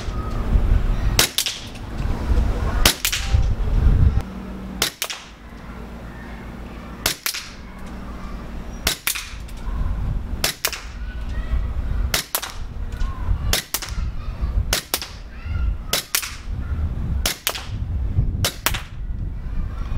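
ICS BLE XAE gas blowback airsoft pistol firing single shots on green gas, about a dozen crisp pops with the slide cycling, one every second or two.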